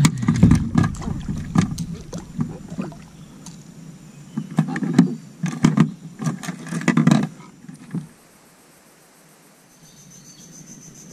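Irregular knocks and thumps on a kayak, from the angler handling gear and a catch aboard, for about seven seconds before it goes quiet.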